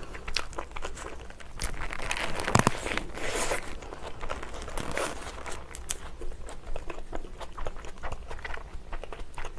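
Close-up chewing of a mouthful of Burger King Monster Whopper: soft wet mouth clicks and smacks, with the burger's paper wrapper crinkling in her hands.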